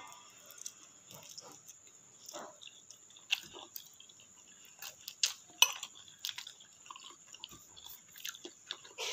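A person slurping and chewing instant noodles: irregular short mouth clicks and smacks, the loudest a little after five seconds in.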